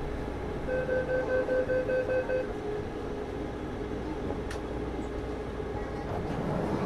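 Rapid electronic warning beeps from a Wenhu line metro car, about seven short beeps at one pitch, about four a second, as at the doors closing. The rubber-tyred train's steady running rumble continues under and after them.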